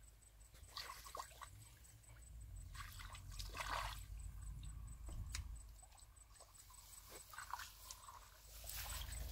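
Faint, irregular splashes and sloshes of hands groping through shallow muddy water and mud, with a few bigger splashes.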